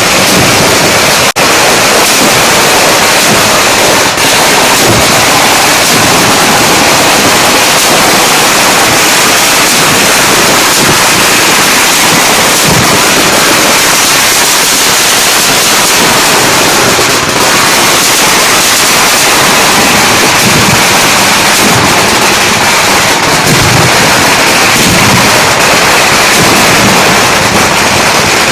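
Dense, unbroken barrage of firecrackers going off in rapid succession, very loud and crackling with no pauses.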